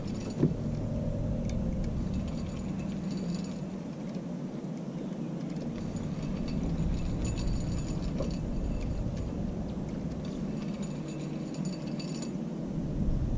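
Fishing reel being cranked in spells while a hooked catfish is played, its gears giving a fine rapid clicking, over a steady low rumble. A single sharp knock about half a second in.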